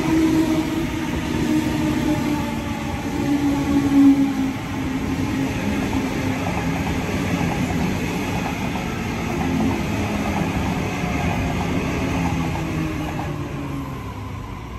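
Sydney Trains double-deck electric train running along the platform with a steady rumble of wheels on rail. The traction motors whine, and the whine falls slowly in pitch as the train slows.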